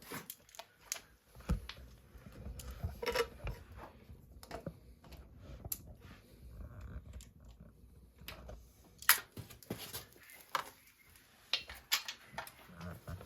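Scattered light clicks and knocks of hand tools and metal parts being handled on a moped engine during teardown, with one sharper knock about nine seconds in.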